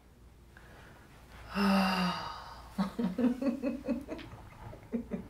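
A woman laughing in disbelief: one long, loud outburst about one and a half seconds in, then a quick run of short "ha" sounds, about five a second, tailing off near the end.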